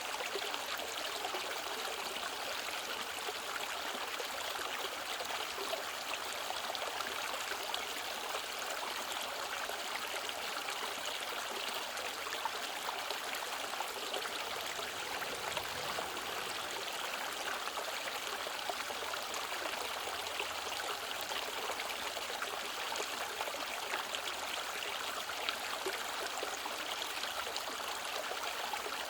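Mountain stream water running steadily over rocks, an even rushing with small splashes and trickles.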